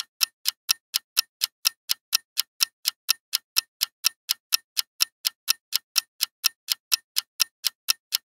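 Ticking-clock sound effect counting down the answer time: crisp, evenly spaced ticks at about four a second.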